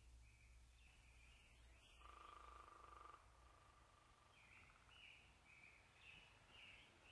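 Near silence, with faint chirping repeated about every half second in two short runs and a faint steady tone about two seconds in.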